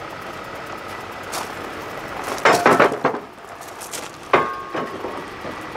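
Wooden trailer loading ramps being lifted and handled against a flatbed trailer: a burst of clattering knocks about halfway through, then a single clank near the end that rings briefly.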